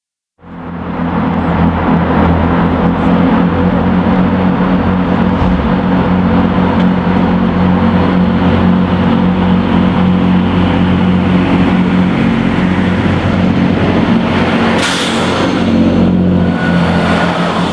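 Railway locomotive running with a loud, steady low drone, starting abruptly about half a second in. A brief high hiss comes about fifteen seconds in.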